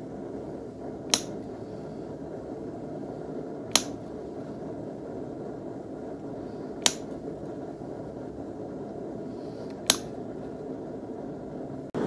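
Hammer tapping a steel punch into a wire fork on an anvil to punch decorative marks: four sharp metallic strikes about three seconds apart, over a steady low rumble.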